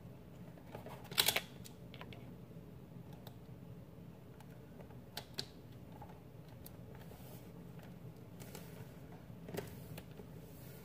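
A few small plastic clicks and taps from handling an LED under-cabinet light bar and its cable against the underside of a wooden cabinet, the loudest a short cluster about a second in, over a low steady hum.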